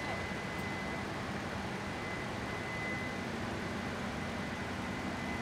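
Steady machine-like noise with a low hum and a faint, thin high whine held throughout.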